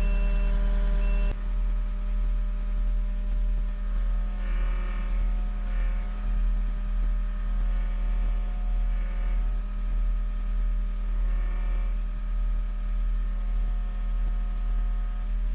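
Skid steer diesel engine running steadily. A backup alarm beeps in the first second or so, and a higher whine comes and goes several times as the machine works under load.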